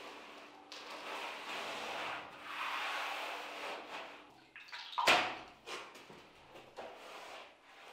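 Wide brush swishing wet coating across a plastered ceiling and wall in long rubbing strokes. A loud sharp knock comes about five seconds in, followed by shorter strokes.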